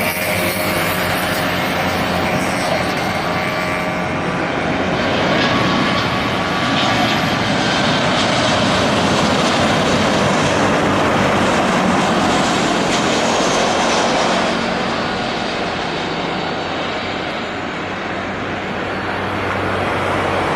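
Private jet's engines passing close on its landing run: steady jet noise with a thin whine, loudest around the middle, easing off about two-thirds of the way through.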